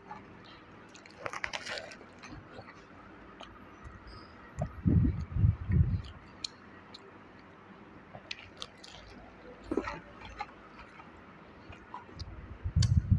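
A person biting into a crispy fried-chicken burger and chewing it. A crunch comes about a second and a half in, with small clicks throughout and a few dull, low thumps in the middle and near the end.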